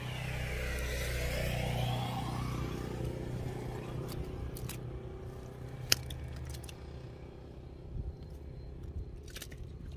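A vehicle passes on the road, its rumble swelling and fading over the first three seconds. After it come a few sharp clicks and light scrapes from handling a fishing net, the sharpest about six seconds in.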